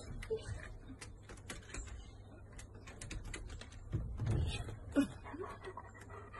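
Scattered light clicking and tapping of dogs' claws on a wooden deck as two huskies move around a wire pen, with a couple of short louder sounds around four to five seconds in.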